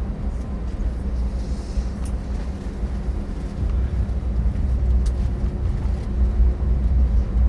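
Passenger airliner cabin during landing: a steady low engine rumble and constant hum over airflow noise, with a couple of faint clicks.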